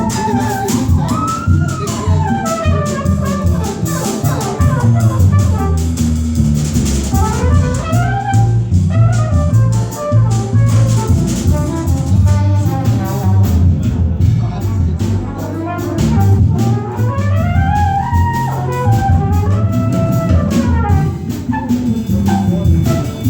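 Small jazz group playing live, with bass and drums under a fast lead line that keeps swooping up and down in pitch.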